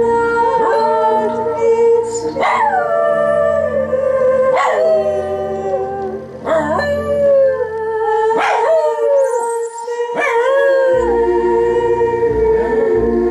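A Bichon Frise howling along to a song that plays with him, in long pitched howls.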